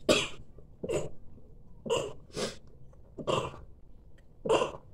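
A woman coughing in a fit, about six coughs roughly a second apart.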